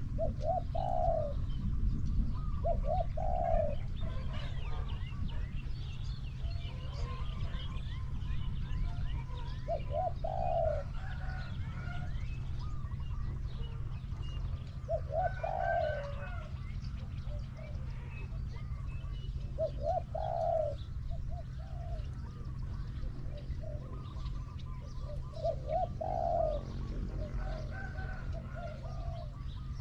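Spotted dove cooing: short repeated coo phrases, about seven of them roughly every five seconds, with faint chirping of other small birds behind.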